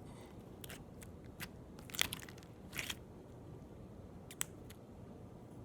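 Jelly slime being squished and stretched by hand, giving a few scattered crackles and clicks; the loudest comes about two seconds in.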